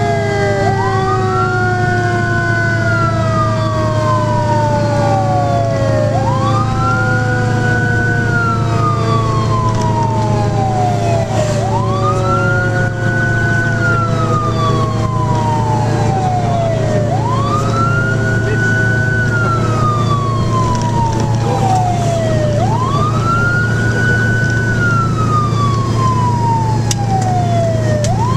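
Fire engine siren wailing, heard from inside the cab over the steady drone of the truck's engine. Each cycle climbs quickly, holds briefly and slides slowly back down, repeating about every five and a half seconds, while a second, lower siren tone glides slowly downward underneath.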